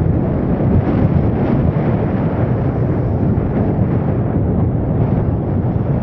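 Steady rush of wind over the microphone with vehicle and road rumble, heard from a moving vehicle.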